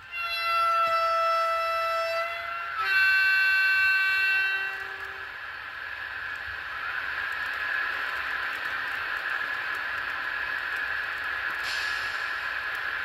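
Sound decoder of a model NMBS/SNCB class 12 electric locomotive (1204) playing through its small speaker: a two-tone horn, a higher note for about two seconds, then a lower note for about two seconds. A steady hiss of the locomotive's running sound follows.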